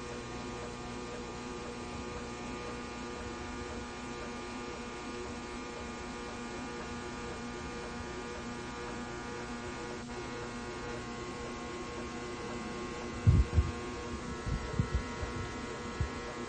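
Steady hum made of many even, level tones, with a few short low thumps about thirteen to fifteen seconds in and once more near the end.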